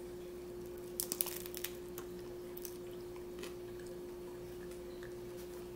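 Close crunching and chewing of a hard-shell taco: a quick run of crunches about a second in, then a few fainter scattered crunches, over a steady low hum.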